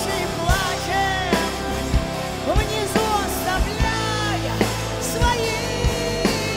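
A live band playing a pop-rock song. Drums keep a steady beat under sustained bass and chords, while a lead line slides and bends between notes.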